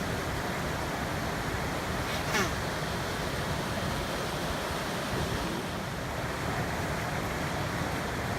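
Steady rushing of a mountain stream. A brief high-pitched squeal cuts in about two seconds in.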